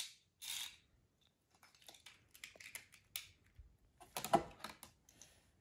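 Faint, scattered clicks and light rustles of small plastic toy parts being handled, with one louder brief clack about four seconds in.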